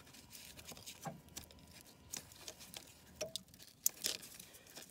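Faint, scattered clicks, taps and light scraping of a small screwdriver and hands prying at a plastic connector clip, with a brief squeak about three seconds in.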